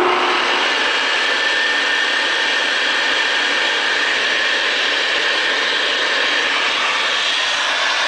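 Hoover Commercial upright vacuum cleaner's motor running steadily, a loud even rushing noise with a faint steady whine.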